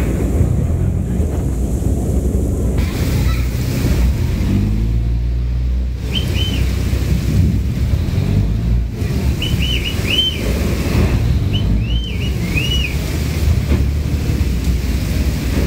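Storm wind buffeting the microphone over rain and choppy river water: a loud, steady rushing rumble. A few short high chirps come in from about six seconds in.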